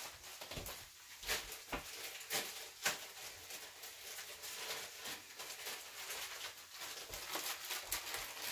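Ground turkey and sliced onion frying in a sauté pan: a soft sizzle full of small crackles, with a few louder clicks and pops in the first three seconds.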